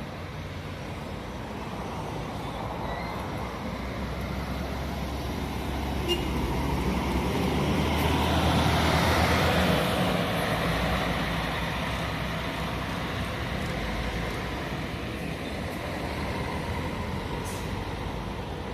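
Intercity coach bus engine running as the bus pulls past. The sound swells to its loudest about halfway through and then fades.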